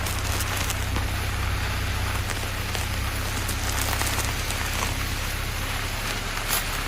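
Car driving on a dirt road: a steady low rumble with a continuous patter of small crackles and ticks from grit and stones under the tyres.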